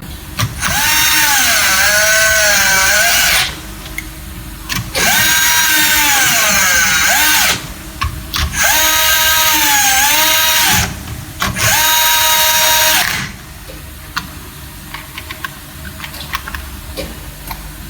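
Cordless electric screwdriver run in four bursts of a few seconds each, its motor pitch dipping and rising as it drives screws, in keeping with tightening the terminal screws that hold a bus bar to MCB and RCD devices.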